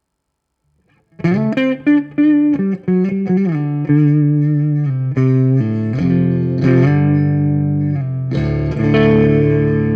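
Electric guitar played after a second of silence: a run of plucked single notes and short phrases, then a chord struck near the end and left ringing.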